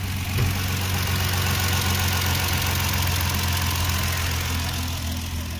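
Toyota 1JZ-GE inline-six idling steadily with the accessory drive belt removed. With the belt off there is no squeak, which points to the belt tensioner as the source of the squeak.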